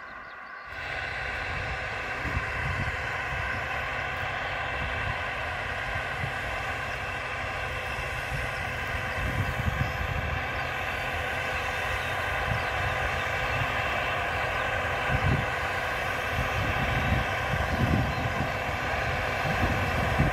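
Diesel engine of a T-150K wheeled tractor running steadily under load while pulling a cultivator, growing gradually louder as it approaches. The engine sound comes in abruptly under a second in, with a low, gusty rumble underneath.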